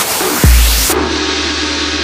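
Closing bars of a trap remix: a hiss of white noise over a deep 808 bass hit, then just under a second in the beat cuts out, leaving a ringing tone that fades away as the track ends.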